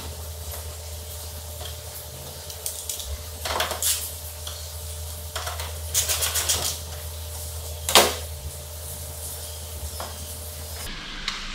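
Metal clinks and clicks of a hand tool and fastener as a headlight mounting screw is refitted, with a short run of quick clicks around the middle and a sharper click later on. A low steady hum runs underneath.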